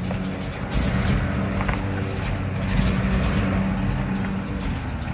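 Vehicle engine idling steadily, its low note wavering slightly, with a faint click or two.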